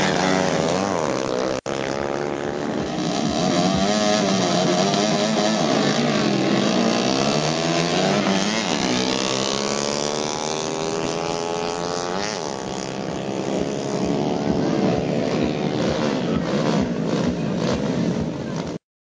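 Small-displacement motorcycle engines revving hard as the bikes accelerate in a drag race, their pitch climbing in repeated rising sweeps as they run through the gears. The sound drops out briefly about a second and a half in and stops abruptly just before the end.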